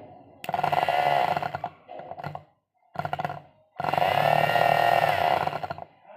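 Vacuum cleaner motor switched on and off in two short runs of about one and a half and two seconds, with a brief blip between them, giving a loud motor whine that wavers slightly in pitch.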